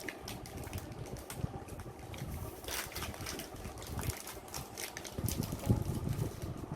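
Candy wrappers rustling and crinkling as the sweets are unwrapped: irregular short crackles over a low rumble of handling on the microphone.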